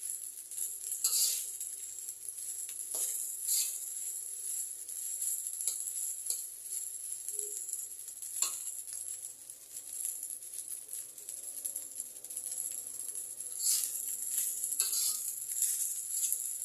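Fried rice sizzling in a hot pan, a steady high hiss, with occasional sharp scrapes and knocks of a utensil against the pan as it is stirred.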